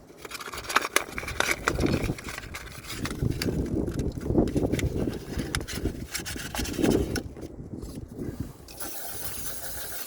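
Sandpaper scrubbing by hand on metal in quick, irregular strokes, cleaning up the thermostat mating surface on an Alfa Romeo 166 2.0 Twin Spark before the new thermostat goes on. Near the end the strokes stop and wind hisses across the microphone.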